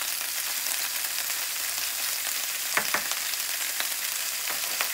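Tomato wedges sizzling in hot mustard oil in a frying pan: a steady high hiss, with a couple of light ticks a little under three seconds in.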